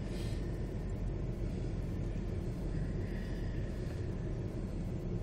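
Steady low rumble of a car's engine and tyres heard from inside the cabin while it drives along.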